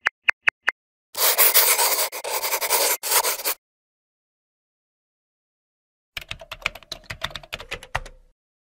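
Animation sound effects: a quick run of short pops, then about two and a half seconds of scratchy pen-on-paper scribbling, then a fast stream of keyboard-typing clicks lasting about two seconds.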